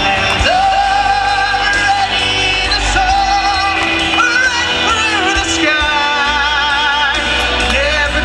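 A man singing a pop ballad with instrumental accompaniment and a steady bass. He holds long notes with vibrato, the widest around the middle and latter part.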